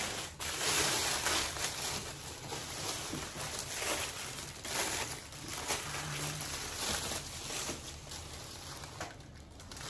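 Thin white packing wrap rustling and crinkling unevenly as a boxed castle figurine is lifted out of it, quieter near the end.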